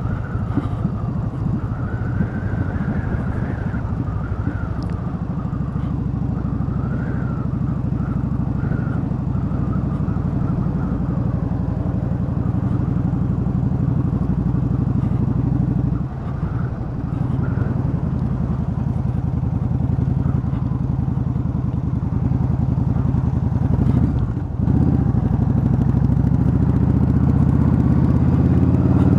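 Cruiser motorcycle engine running steadily at low road speed. The engine note eases off briefly about halfway through and again later, then builds toward the end.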